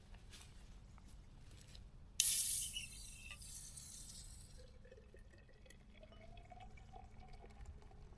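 A beer can cracked open with a sudden loud hiss about two seconds in. Beer is then poured into a glass, the pouring sound rising in pitch as the glass fills.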